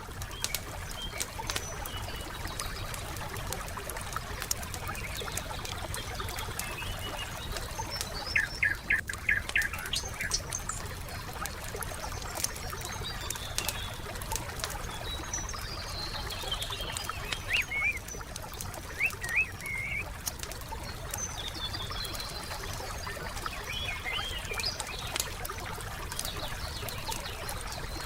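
Wood campfire crackling with scattered sharp pops over a soft steady rush, while songbirds chirp and trill on and off, in short bursts about eight seconds in, again around eighteen to twenty seconds, and near the end.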